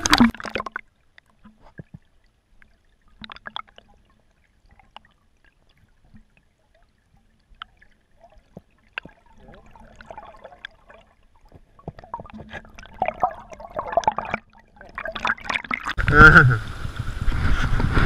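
Muffled river water heard through a submerged action camera: near quiet with scattered small clicks and faint gurgling. Near the end the sound turns suddenly louder and fuller as water noise rushes in.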